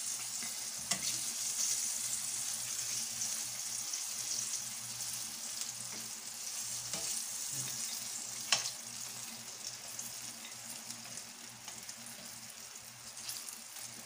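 Coated pork pieces sizzling in hot oil in a nonstick wok, with metal tongs clicking against the pan as the fried pieces are turned and lifted out; the sharpest click comes about eight and a half seconds in. A low steady hum runs underneath.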